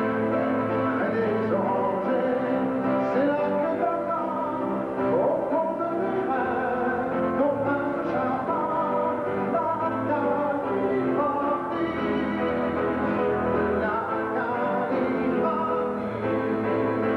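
A man singing a song live into a handheld microphone, with instrumental accompaniment including acoustic guitar.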